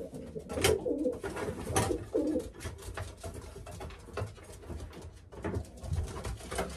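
Racing pigeons cooing in a small wooden loft, mostly in the first two and a half seconds, with scattered knocks and rustles as birds are taken from their nest boxes.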